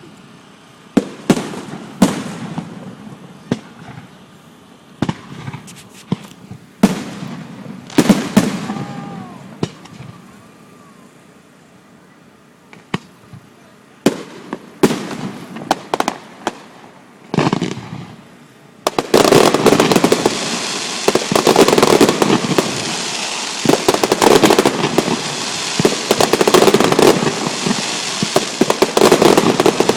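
Fireworks display. For the first two-thirds, separate aerial shell bursts come one at a time, each a sharp bang followed by a rumbling echo. Then a dense, continuous barrage of rapid bangs and crackle sets in and carries on.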